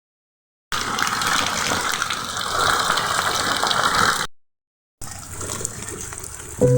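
Running water gushing steadily in two stretches with a short break between, the second stretch quieter. Music starts right at the end.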